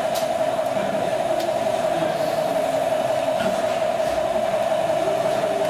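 Steady mid-pitched whine from a large-scale model railway locomotive, running unbroken, with a few faint clicks.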